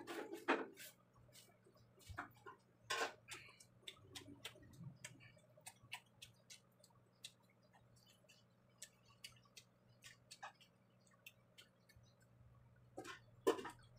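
Close-up eating sounds: a string of small, irregular mouth clicks and smacks from chewing, with a few louder bursts, over a faint steady hum.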